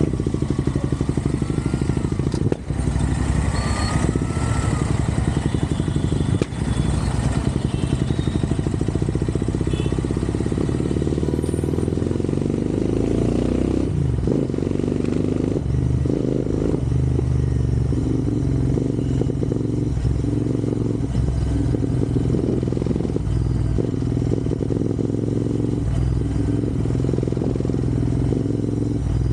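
Royal Enfield Interceptor 650's parallel-twin engine running while the motorcycle is ridden. The engine note drops and changes about halfway through, then runs on steadily.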